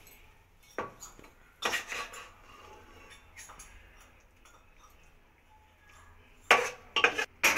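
Metal spoon clinking and scraping against a pressure cooker and a steel plate as carrot halwa is served out. There are a few light clicks in the first two seconds, then three sharp knocks close together near the end.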